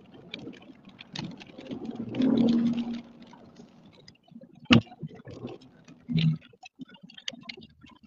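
Irregular clicks and knocks over a low rumble inside a moving car, with a louder stretch about two seconds in and a sharp knock just before five seconds.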